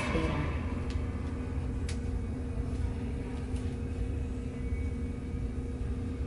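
A steady low hum with a faint steady tone running through it, and a few light clicks in the first two seconds.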